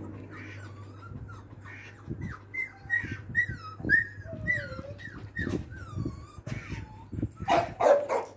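Dogs whining in a run of high, falling cries about two a second, then barking loudly near the end.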